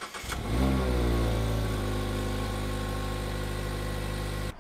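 Mazda MX-5 ND's four-cylinder engine on its stock exhaust, cold-started: a brief crank, then it catches about half a second in. It flares up in revs and settles into a steady, raised cold idle, which cuts off suddenly just before the end.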